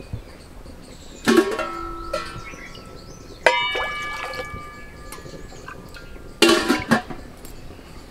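Stainless steel utensils clanking against a wok three times, each knock ringing on briefly, while water is poured into the wok.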